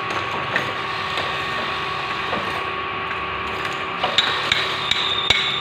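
Scattered metallic clicks and knocks of hand tools being worked on a scooter, over steady workshop noise with a constant hum. A thin high tone joins about four seconds in.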